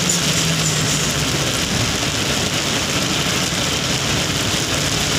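A vehicle's engine hums steadily under an even hiss of heavy rain and wet road, heard from inside the cab.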